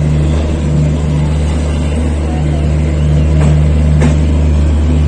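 Steady low rumbling drone of the train's diesel generator car, heard from a moving coach. Two sharp clicks come about three and four seconds in.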